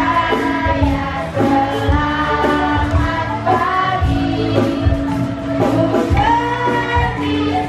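Women singing into microphones over music with a regular low beat.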